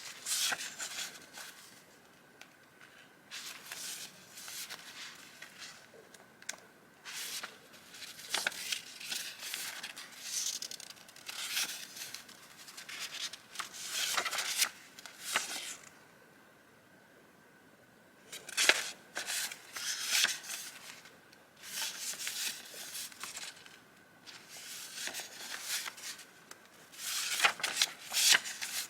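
Vintage paper and journaling ephemera being handled: bursts of paper rustling and crinkling, with a pause of about two seconds a little past the middle.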